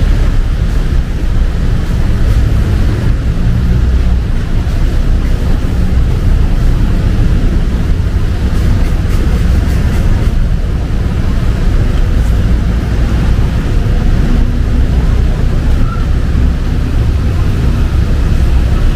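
Steady low rumble of busy city street traffic, loud and unbroken.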